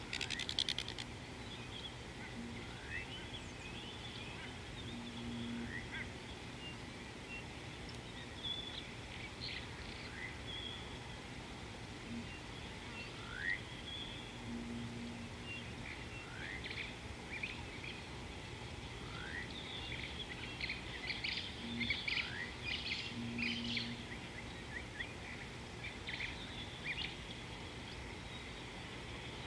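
Several East African savanna birds calling: short chirps, rising whistles and trills, busiest a little past the middle. A short rattling buzz comes right at the start, and a steady low hum runs underneath.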